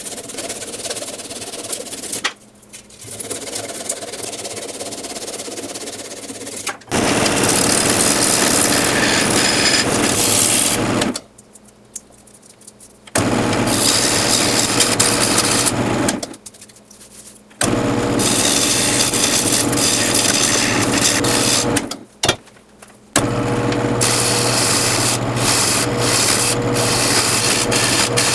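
Gouge cutting into a maple log spinning on a wood lathe: a loud, even, rough scraping hiss that starts about seven seconds in and comes in four spells, broken by short spells of near quiet.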